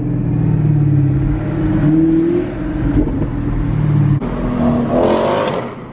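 Chevrolet Camaro ZL1's supercharged V8 running under load while driving. Its pitch edges up, then changes abruptly just after four seconds in, as at a gear change, and a brief rushing noise follows near the end.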